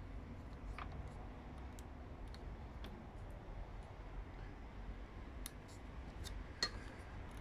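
Faint, irregular small clicks and ticks as fingers press and adjust copper wire turns on a plastic transformer bobbin held in a hand winding machine, the sharpest click coming near the end. A low steady rumble sits underneath.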